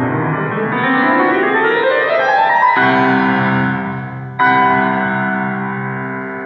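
Grand piano playing a fast run of notes rising up the keyboard, then a chord struck and held about three seconds in. About a second and a half later a second, louder chord is struck and left to ring and slowly fade.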